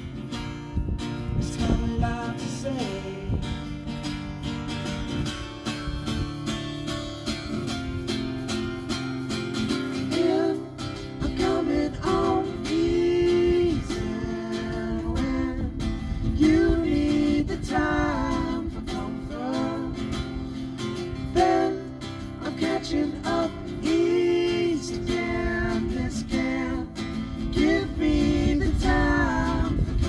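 Live acoustic song: an acoustic guitar strummed while men sing.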